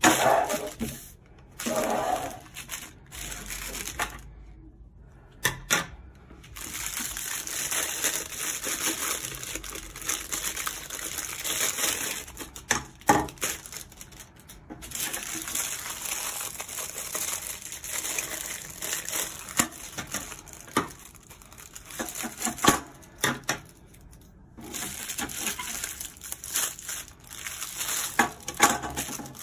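Clear plastic packaging bags crinkling and tearing in irregular bursts as they are opened and pulled off the parts of a mini tripod table, with a few sharp knocks.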